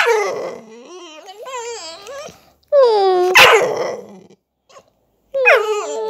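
Staffordshire bull terrier vocalizing in drawn-out whining calls that slide down in pitch and then waver up and down, three calls in all, with a short sharp noisy burst in the middle of the second.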